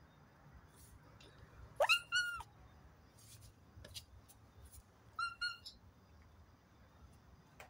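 Grey tabby-and-white cat meowing: two high calls close together about two seconds in, the first rising in pitch, then two shorter meows about five seconds in.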